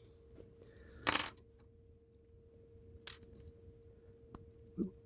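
Small clinks and clicks of tiny toy-car wheels and axles being handled, with a short clatter about a second in and a few lighter ticks later. A faint steady hum runs underneath.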